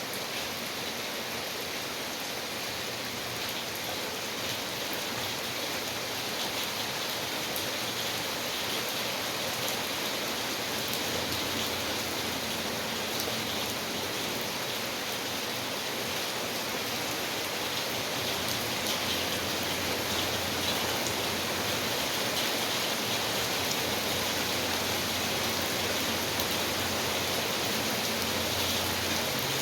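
Steady rain falling, with a dense patter of drops hitting a surface.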